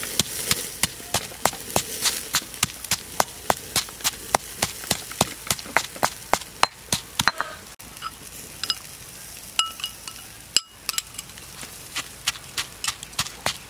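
Stone pestle pounding chili, garlic and salt into a paste in a stone mortar: sharp, steady knocks about three a second, thinning out for a couple of seconds past the middle.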